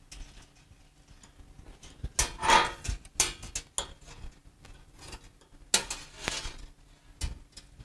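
Rustling and light clicks of electrical wires being handled and fitted at a valve actuator's terminal block, with a faint steady low hum underneath.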